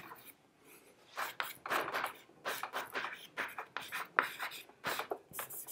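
Chalk writing on a chalkboard: a series of short, irregular scratchy strokes as words are written by hand.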